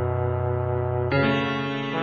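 Music: held chords, changing to a new chord about a second in.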